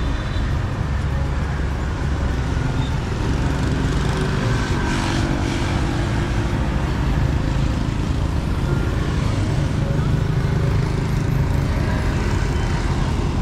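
Steady road-traffic noise: a low rumble of passing vehicles, with a brief hiss about five seconds in.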